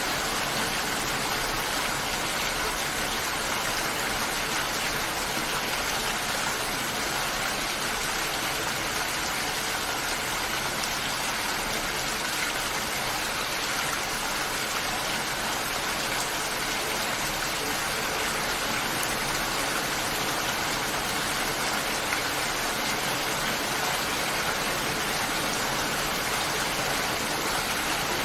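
Steady rain falling, an even hiss of water without breaks.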